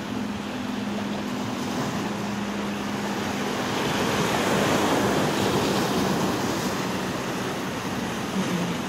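Sea surf washing around rocks, a steady rush of water with wind on the microphone, swelling louder about four to six seconds in. A faint steady low hum runs beneath.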